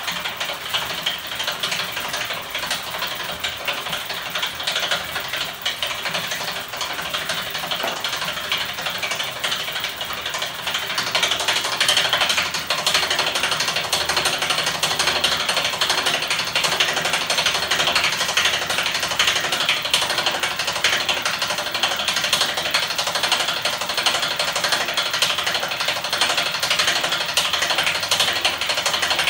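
Homemade electric-motor-driven magnet machine, its rotor assembly spinning inside an aluminium frame with a fast, even mechanical clatter. It gets louder about eleven seconds in.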